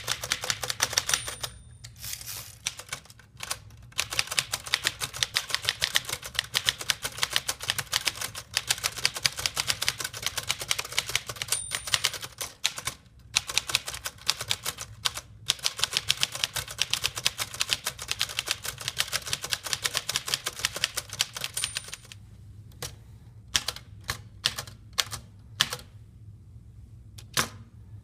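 A 1919 Underwood Standard Portable three-bank typewriter being typed on quickly, its typebars striking in a rapid clatter, with the margin bell ringing three times near the line ends. Near the end the typing slows to sparse single keystrokes.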